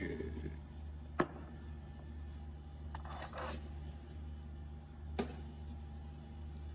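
Two sharp knocks, about four seconds apart, with a short double scrape between them, over a steady low hum: handling sounds at an espresso bar counter.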